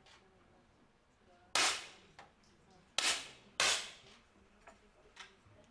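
Three 10-metre air pistol shots, each a sharp crack with a short ringing tail. The first comes about one and a half seconds in; the next two follow about a second and a half later, just over half a second apart.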